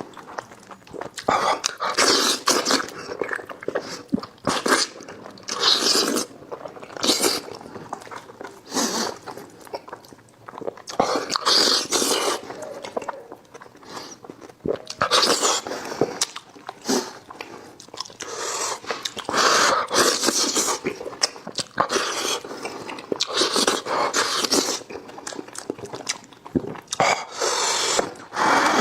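A person eating cooked sheep's head close to the microphone: wet chewing, smacking and slurping in irregular bursts with short clicks.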